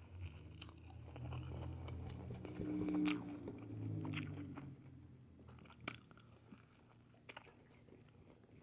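Close-up chewing and biting of food, with a few wet mouth clicks. It goes quiet after about five seconds, leaving only a few faint clicks.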